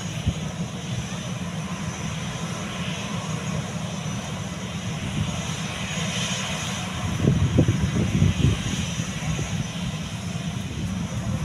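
Airbus A320's CFM56 turbofan engines running at low thrust as the airliner rolls along the runway: a steady high whine over a low rumble that swells for a couple of seconds about seven seconds in.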